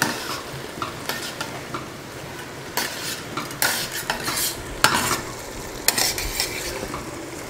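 A perforated steel spatula stirring wet, nearly-dry biryani rice in a large stainless steel pot, with a string of scrapes and clinks of metal against the pot over a steady sizzle from the simmering rice.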